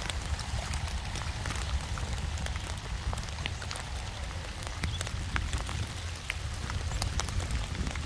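Steady rain falling, with many separate drops ticking sharply, over a steady low rumble.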